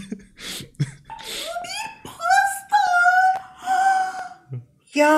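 A few breathy gasps, then high-pitched, drawn-out wailing cries from a human voice that rise and fall over two to three seconds. Just before the end a lower, long, steady howl-like cry begins.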